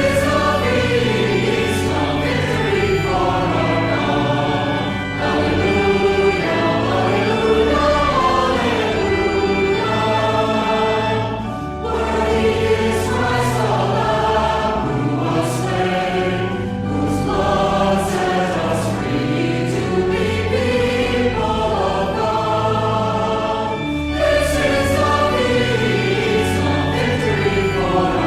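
A choir singing a hymn over a sustained low instrumental accompaniment, the bass notes changing about once a second.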